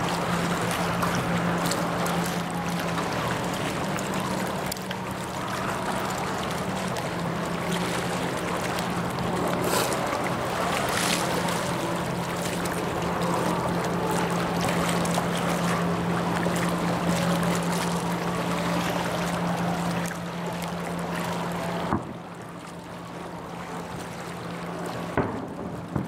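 A steady low engine hum over wind and water noise. It drops away suddenly about 22 seconds in with a sharp click, and a second sharp click comes near the end.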